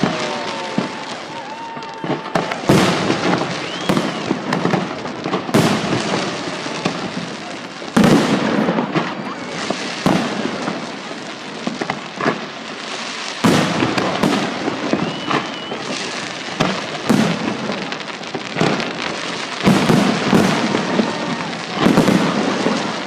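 Aerial fireworks salute: a string of loud booms from bursting shells, one every second or two, each echoing away, with a steady crackling hiss between them.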